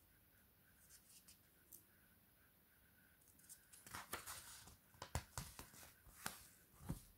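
Paperback book pages being turned and flexed by hand: soft paper rustling and short crisp flicks. A few faint rustles come first, then a busy run of louder flicks from a little past halfway to the end.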